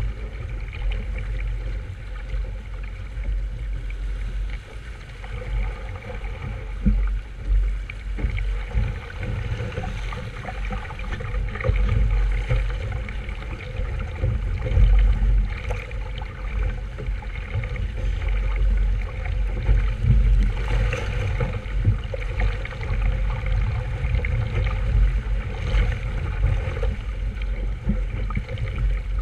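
Water washing and gurgling along a sailboat's hull, with a strong, gusting low rumble of wind on the microphone.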